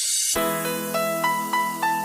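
Background music: a rising hiss swell cuts off abruptly a moment in, then a melody of separate notes plays over a steady held chord.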